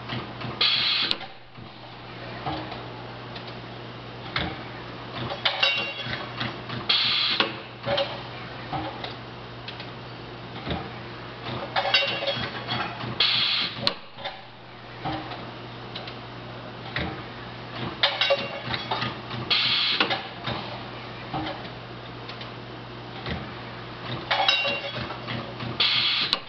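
A 300 kVA automatic brake-shoe seam welding machine running through repeated weld cycles, with a steady electrical hum under mechanical clicks and knocks. In each cycle, about every six seconds, there is a short burst of bright hissing and crackling.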